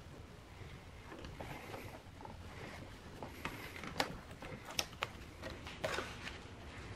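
Faint handling noise: the paper template and strips of masking tape rustle under the fingers on the hood, with a few light sharp clicks in the second half.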